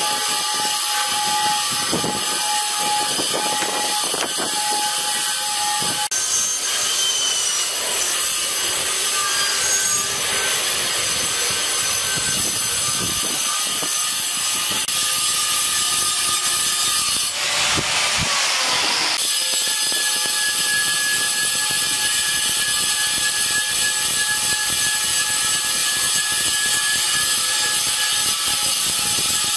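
Handheld electric power tool working granite, running with a steady high whine. Its tone shifts a few times, and a harsher noisy stretch comes about 17 seconds in and lasts two seconds.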